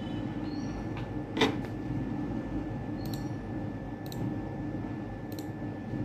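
Room tone: a steady low hum with a faint high whine, and four short clicks, the loudest about a second and a half in.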